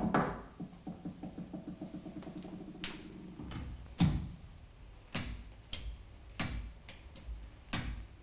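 A sharp metal clank that rings on for about three seconds, then a series of short sharp clicks, roughly one a second, as a hand-lever grease gun is pumped into the grease nipple of a Walterscheid PTO clutch coupling clamped in a vise.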